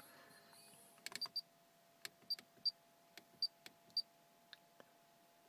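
About a dozen sharp clicks in irregular succession, several with a short high beep, as the aftermarket car stereo's knob and buttons are worked.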